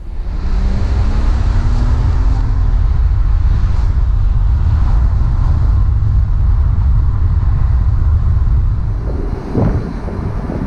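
Porsche Boxster's flat-six engine running under way with the roof down, mixed with heavy wind rush on the microphone; the engine note rises as the car accelerates in the first couple of seconds. About nine seconds in, the sound drops a little and turns more gusty.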